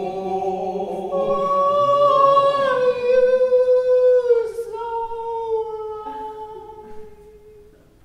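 Unaccompanied singing voices, more than one, holding long notes that step downward in pitch and fade away over the last couple of seconds.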